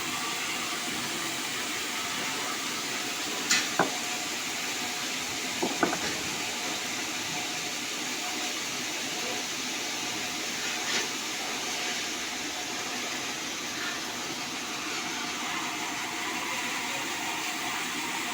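Steady rushing noise of a band saw running, with a few short sharp knocks, two close pairs around four and six seconds in and one more near eleven seconds.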